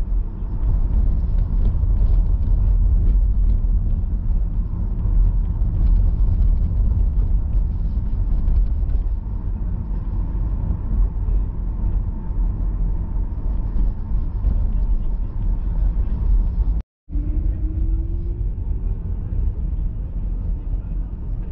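Steady low rumble of a car driving on city streets, heard from inside the cabin. The sound cuts out for a split second about seventeen seconds in, and a short rising tone follows.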